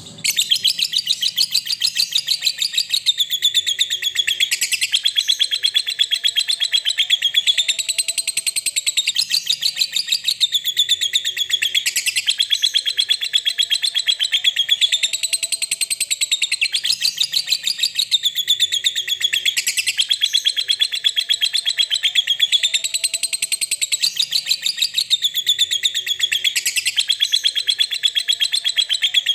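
Lovebird 'ngekek': one long, unbroken, very fast high-pitched chattering trill. It starts suddenly just after the opening and runs on without a pause, its pitch swelling up and falling back about every two seconds.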